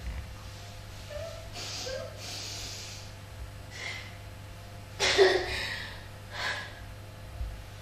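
A woman's gasping, sobbing breaths with no words, in short breathy bursts; the loudest sob comes about five seconds in, with another soon after.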